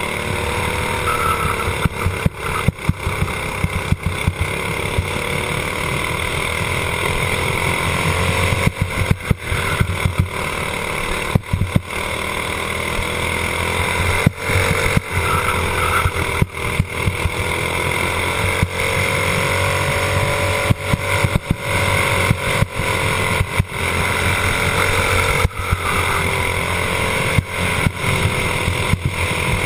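Racing kart engine running at speed, recorded onboard the kart, its pitch slowly rising and falling through the corners and straights. The sound breaks up with frequent brief dips.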